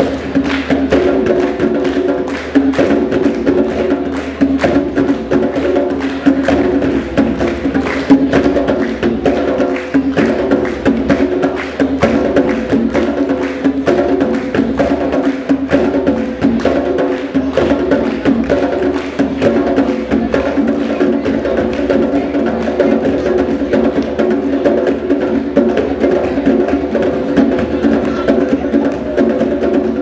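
Four djembes played by hand together in a fast, continuous drumming rhythm of dense, overlapping strokes.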